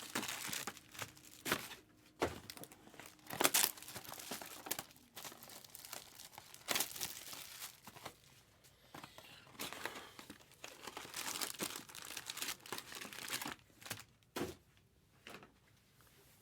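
Trading card boxes and packs being torn open by hand: irregular bursts of crinkling and ripping wrapper, with a few sharp clicks and taps.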